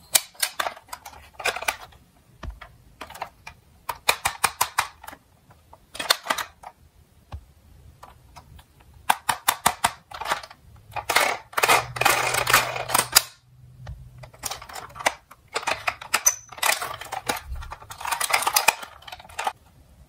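Plastic toy fire truck being handled and turned over in a cardboard box: irregular bursts of clicking and rattling plastic, with longer stretches of scraping and rustling about eleven to thirteen seconds in and again near the end.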